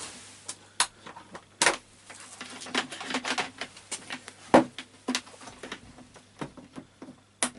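Wet and dry vacuum's parts being handled and stowed: a string of irregular small clicks and knocks, with a few sharper knocks, one about two seconds in, one midway and one near the end.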